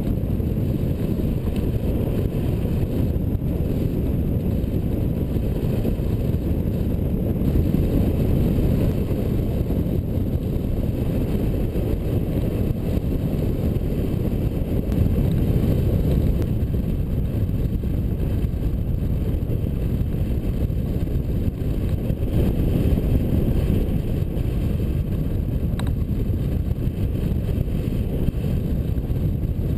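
Wind buffeting the microphone of a camera mounted on a hang glider in flight: a steady low rumble that rises and falls a little.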